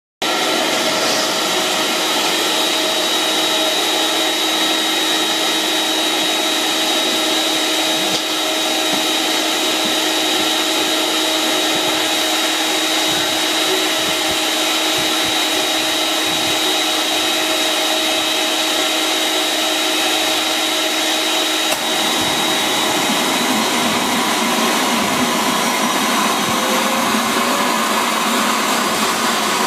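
Homemade turbojet engine built around a Volvo TD04HL-13G turbocharger running steadily: a loud rush of air with a high whine. About 22 seconds in the whine fades and the tone of the rush shifts.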